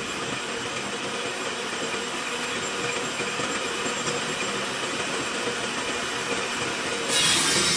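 Table saw running with its blade spinning free, a steady mechanical hum. About seven seconds in the blade starts cutting into the wood, and the sound turns suddenly louder and brighter.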